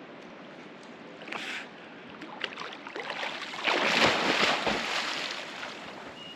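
Water in a pool splashing and sloshing, with a louder swell lasting about two seconds past the middle.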